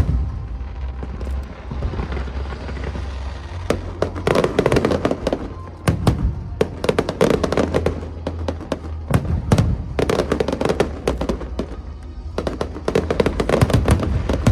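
Fireworks display: rapid volleys of bangs and crackles coming in dense clusters a second or two long, over background music.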